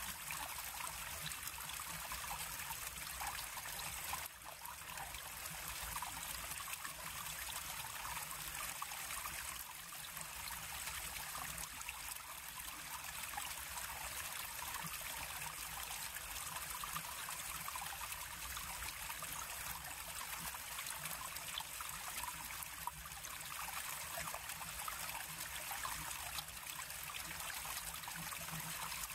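A river flowing steadily, its water rippling and trickling over stones.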